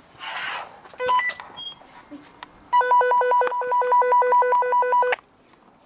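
Electronic beeping: a short beep about a second in, then a rapid run of identical beeps, about five a second, lasting roughly two and a half seconds before cutting off.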